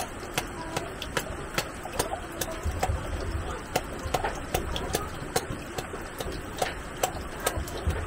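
A steady series of sharp knocks, about two or three a second, with faint voices behind them.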